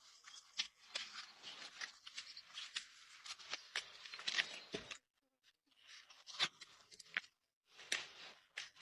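Horse's overgrown hoof horn being cut and pared with trimming tools: irregular scraping and snipping with short sharp clicks, pausing briefly about five seconds in and again near the end.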